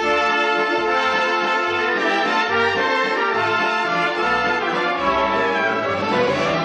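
Orchestral music with brass to the fore, coming in suddenly and fuller at the very start and playing on steadily.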